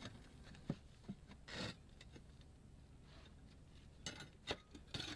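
Concrete roof tiles knocking and scraping against each other as pieces are set in place by hand: a few sharp knocks early, a short scrape, then a cluster of clicks and scrapes near the end.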